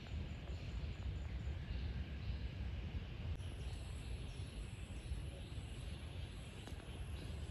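Outdoor rural ambience: a steady low rumble with a faint high hiss over it. Thin high steady tones join about three and a half seconds in.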